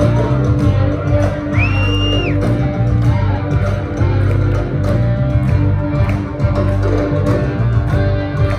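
A live Tuareg desert-blues band plays through the venue PA: electric guitar and bass over a steady beat. About one and a half seconds in, a high whistle rises, holds briefly and falls away.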